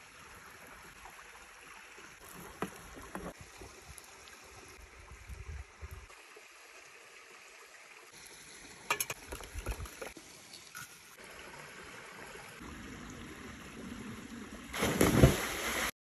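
Faint bubbling of butter in a copper pan over wood embers, with gentle running water behind it and a few light clicks and knocks. A louder noisy burst comes about a second before the end.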